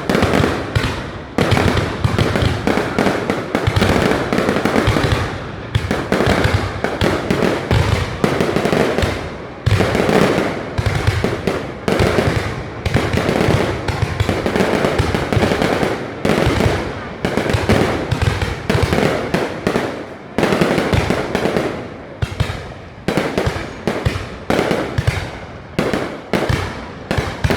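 Fireworks display in a dense, continuous barrage: shells bursting in rapid succession, several bangs a second, with crackle between them.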